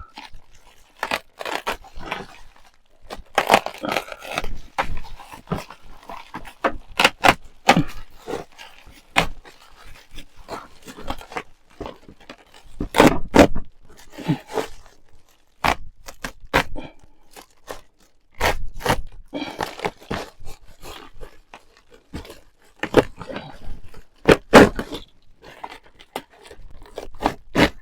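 Hand cutting and prying at the van's ceiling: irregular scraping with many sharp cracks and knocks.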